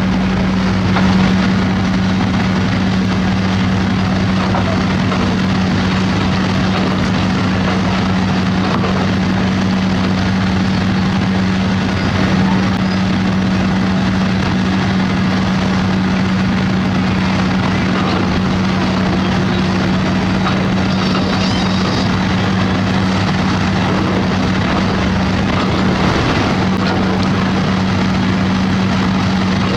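Diesel engine of heavy construction machinery running steadily under load, with a constant low hum and no breaks.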